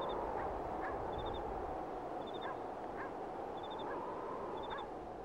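Outdoor nature ambience: steady background noise with a high chirp of four quick pips repeating about once a second, slowly getting quieter.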